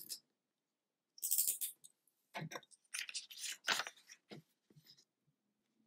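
A box cutter blade slices along the folded crease of a sheet of origami paper, a short noisy swish about a second in. It is followed by several short crisp paper rustles as the two cut pieces are separated and handled.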